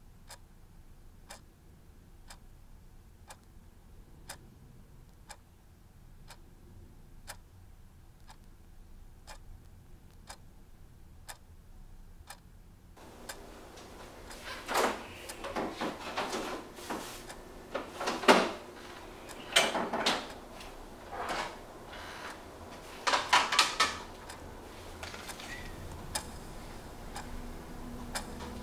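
Clock ticking steadily and faintly. About halfway through, louder irregular knocks and clatters of kitchen handling come in; the sharpest knock falls a little past the middle.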